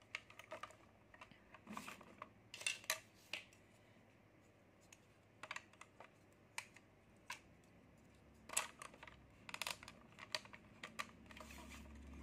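Hard plastic parts of a Spider-Man dancing robot toy clicking and knocking together as its plastic spider legs are pushed into the sockets on its back: scattered sharp clicks, some in quick clusters.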